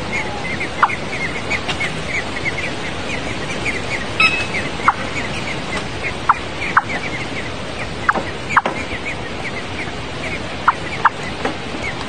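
Nestling songbirds begging to be fed: a rapid, steady run of short high cheeps, several a second, with a few louder single notes standing out, over a steady hiss.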